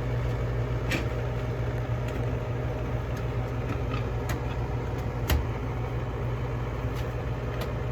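Lennox gas furnace running with a steady hum, its inducer motor on. A few light clicks and knocks come as a new air filter is slid into its slot.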